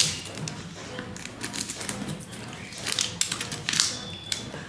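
Snap-off utility knife blade scraping and slicing at the seal on a cardboard box, a run of sharp clicks and scratches that is busiest about three to four seconds in.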